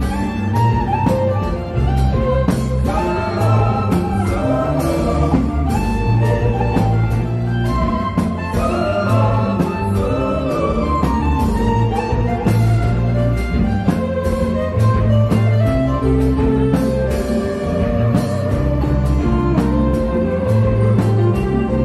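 Live konpa band playing: electric guitars and keyboard over a steady, repeating bass line and a regular beat of drum and cymbal strokes.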